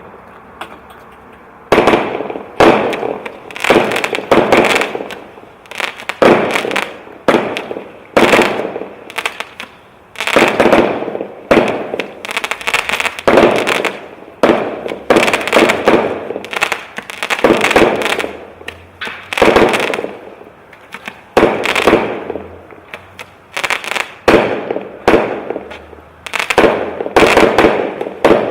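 A multishot firework cake firing in quick succession after a brief fuse hiss: a bang every half second to a second, each shell bursting with a crackling tail.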